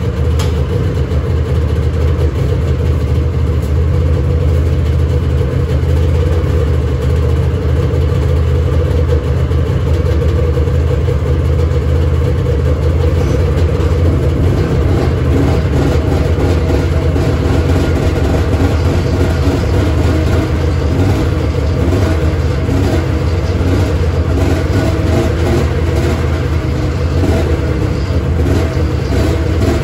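Two-stroke Polaris snowmobile engine idling steadily.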